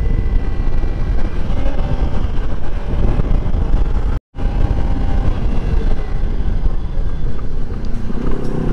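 Wind buffeting the microphone of a Kawasaki Ninja sport bike riding at road speed, with its engine running underneath. The sound drops out for an instant about four seconds in.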